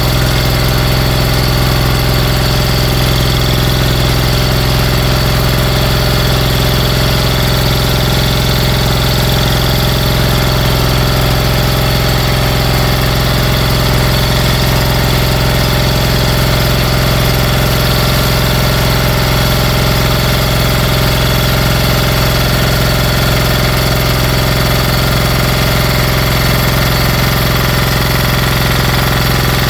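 Briggs & Stratton 23 hp Intek engine, reassembled on its own damaged internals, running at a steady speed.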